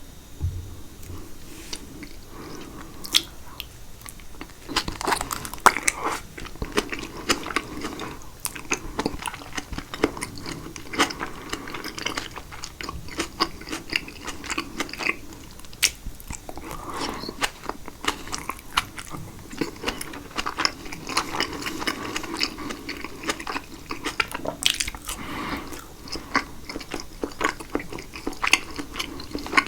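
Close-miked chewing of caprese salad (tomato and fresh mozzarella in balsamic dressing), with many sharp mouth clicks throughout.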